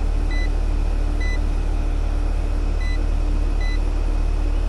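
Outdoor air-conditioner condensing unit humming steadily; its compressor is locked up and trips out on high amps. Four short high beeps sound over it in two pairs.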